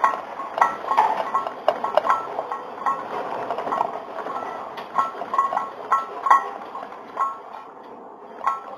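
Household objects rattling and clinking in a strong earthquake: irregular knocks and short glassy rings, two or three a second at first, growing sparser and fainter toward the end as the shaking dies down.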